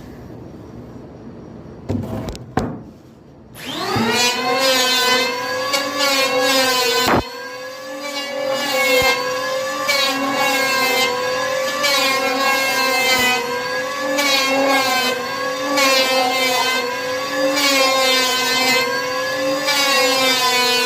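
An electric power tool's motor starts about four seconds in, spins up quickly and runs with a steady whine whose pitch wavers and dips slightly now and then. A few clicks come just before it starts.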